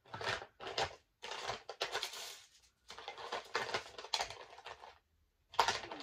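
Rummaging through colouring supplies: small containers and packaging clattering and rustling in irregular bursts, with a short pause about five seconds in.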